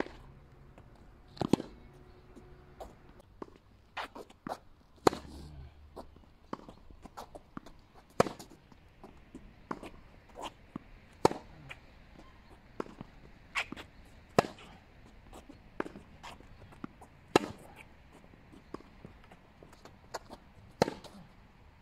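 Tennis racket striking the ball in a baseline rally: a loud, sharp hit from the near player about every three seconds, many of them two-handed backhands. Fainter impacts fall between, from the ball bouncing and the far player's returns.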